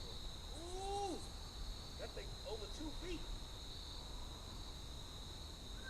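Insect chorus: a steady, unbroken high trill.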